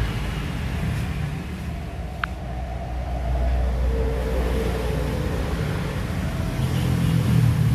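Steady low rumble of road traffic, with a faint engine note in the middle and one brief high click about two seconds in.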